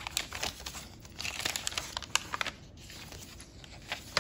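Paper pages of a handmade junk journal being handled and turned: crinkling and rustling in quick crackles, busiest in the first half, with a sharp flick near the end as a page flips over.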